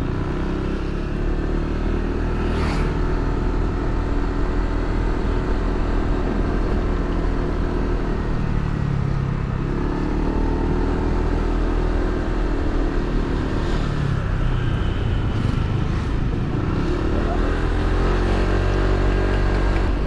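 Motor scooter engine running while riding, its pitch rising and falling several times with the throttle, over a steady low rumble.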